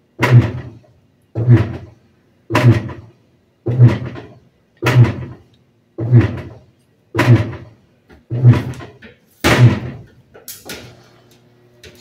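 Top-load washing machine's drive jerking the agitator back and forth, a thump at every stroke about once a second, roughly ten strokes, stopping shortly before the end. The tub has not yet been filled with water.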